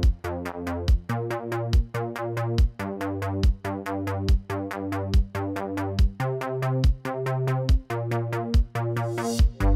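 Electronic background music with a steady drum-machine beat, a kick drum about once every second, fast hi-hats and held synth chords, with a cymbal swell near the end.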